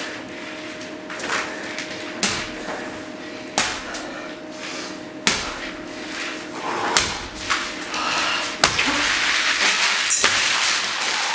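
Six sharp knocks or slams about every one and a half to two seconds, over a faint steady hum, with a hissing noise building near the end.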